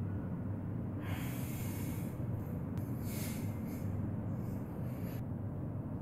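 A man breathing audibly through several long, hissy breaths while stretching, over a steady low hum.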